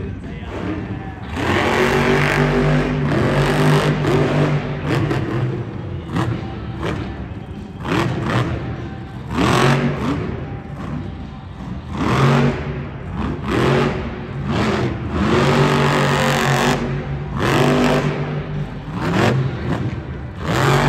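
Grave Digger monster truck's engine at full throttle, revving up and falling back in repeated surges every couple of seconds, echoing through an arena.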